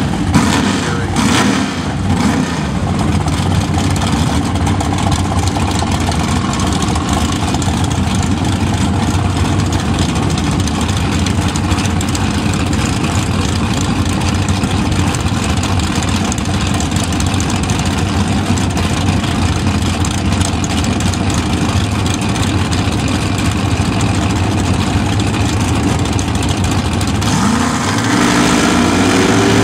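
Drag race car's engine running loudly and steadily while staged at the starting line, with a few sharp blips in the first couple of seconds. Near the end the revs climb in a rising pitch as the engine is brought up for the launch.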